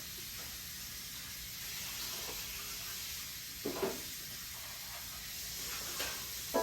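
A steady, faint hiss, with a couple of faint brief sounds in the middle.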